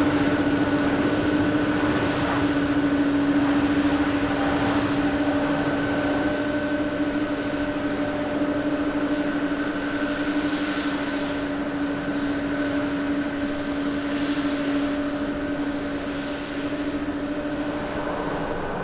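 Airbus A350-900's Rolls-Royce Trent XWB turbofans at takeoff thrust: continuous jet noise with a steady hum and higher whine through it, growing slightly fainter near the end as the jet climbs away.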